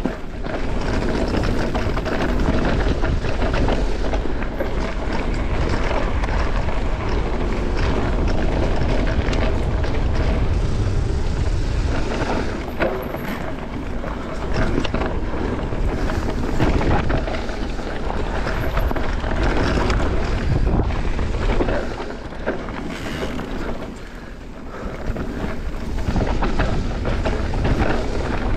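Mountain bike riding down a rocky trail: wind rumbling on the camera microphone, with a constant rattle and clatter of tyres and bike over the ground.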